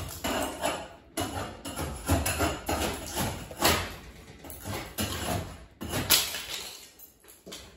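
Irregular knocks and bangs from building work out of sight, over a low rumble. The loudest strikes come about three and a half and six seconds in, and they die down near the end.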